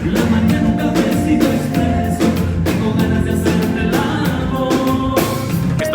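Music: a band with drums and a singing voice.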